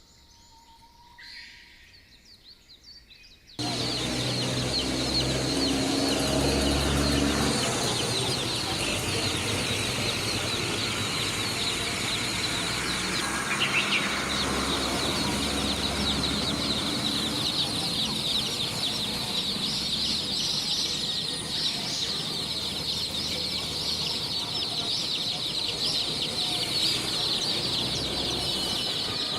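A crowd of poultry chicks peeping constantly, many high-pitched cheeps overlapping into a dense din. It starts abruptly a few seconds in, after a quiet stretch.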